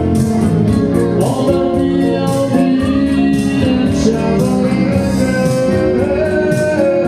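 Music playing: a song with a singing voice over keyboard accompaniment and a steady beat.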